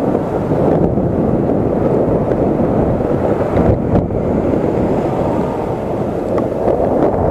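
Wind buffeting the microphone of an action camera mounted on a moving electric scooter, a loud, steady rumble with no distinct tones.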